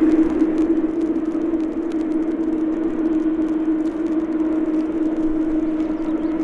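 Jet engines of a taxiing Boeing 787 airliner running at idle thrust: a steady low hum with a whine over a rush of engine noise.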